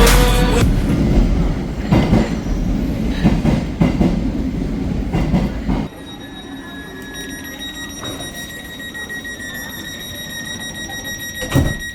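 Electric passenger train running on the rails, with a loud rumble and repeated clattering knocks. About six seconds in the rumble drops away and a steady high-pitched wheel or brake squeal holds as the train slows, ending with a sharp knock near the end.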